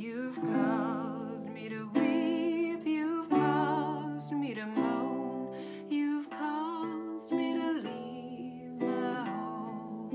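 A woman singing a slow folk melody with a wide vibrato over chords struck about once a second on a nylon-string classical guitar, each left to ring and die away.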